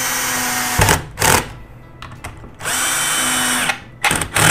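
Cordless drill-driver driving a screw into MDF: the motor runs steadily twice for about a second, and each run ends with two short blips of the trigger.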